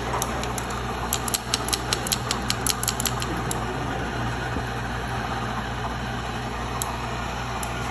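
A quick run of sharp clicks, several a second for about two and a half seconds, over a steady low mechanical hum.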